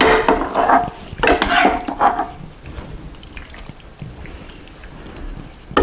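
Metal scoop scraping and stirring through sauced rigatoni in a skillet, in two bursts over the first two and a half seconds, then quieter small clinks and scrapes as pasta is moved into a ceramic casserole dish.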